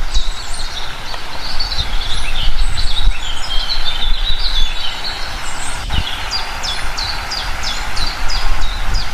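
Wild birds chirping and singing, several calls overlapping, with one bird repeating a quick series of short down-slurred notes, about three a second, in the second half. A steady low rumble runs underneath.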